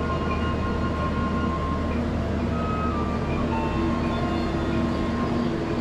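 Soft music of long held notes over a steady low hum.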